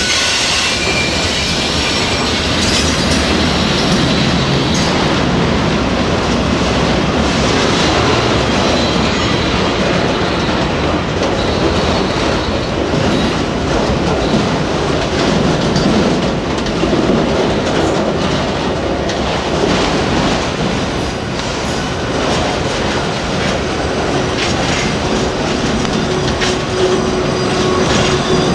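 Freight train of autorack cars rolling past close by: a steady, loud rumble of steel wheels on rail, with clicks at the rail joints. A steady squealing tone sets in near the end.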